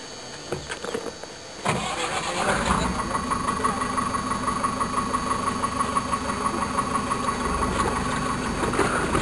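An engine running steadily with a constant pitched hum. It sets in abruptly about two seconds in, after a quieter stretch of faint clicks.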